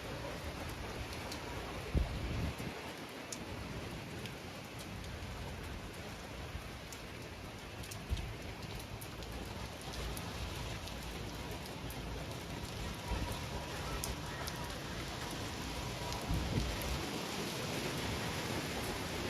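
Hurricane rain falling steadily with gusting wind. Gusts buffet the phone's microphone with low rumbling knocks, most sharply about two seconds and eight seconds in.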